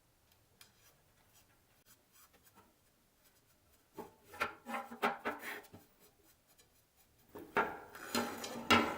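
Shock cord being fed through hollow fiberglass tent pole sections, with the sections rubbing and clicking against each other. It is faint at first, then comes in bursts of scratchy rubbing and light clicks from about four seconds in and again near the end.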